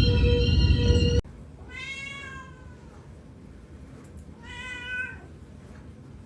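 A domestic cat meowing twice, two drawn-out meows a couple of seconds apart. Before them, loud music cuts off suddenly about a second in.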